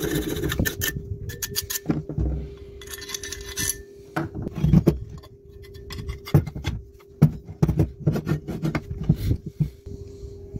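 Irregular scraping, rubbing and clinking of hard parts and tools being handled, with sharp clicks here and there over a steady low hum.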